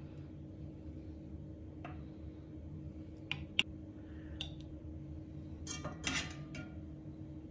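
Metal tongs clinking against a ceramic plate as food is set down: scattered sharp clicks, the loudest about three and a half seconds in and a small cluster around six seconds, over a steady low hum.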